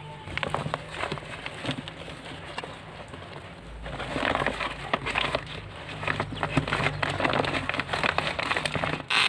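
Woven plastic sack rustling and crinkling as hands gather and fold it, along with soil being pressed down by hand. The rustling grows louder and denser about four seconds in, with a sharper crackle just before the end.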